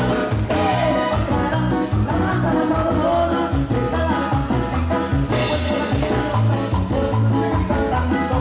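Salsa-style Latin dance music with a steady bass beat and melodic lines over it, with a bright crash about five seconds in.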